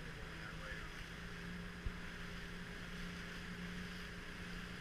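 Motorboat engine running at a steady pitch while the boat is under way, under a steady hiss of wind and rushing water. A single sharp knock comes about two seconds in.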